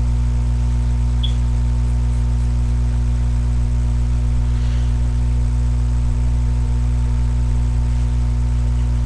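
Loud, steady electrical hum, a low buzz that does not change, of the kind a webcam microphone picks up from mains interference. A faint short high chirp comes about a second in.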